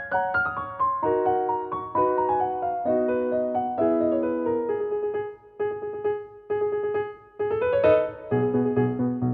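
Background music: a piano playing light repeated chords in stepwise descending phrases, with a fuller chord and bass entering near the end.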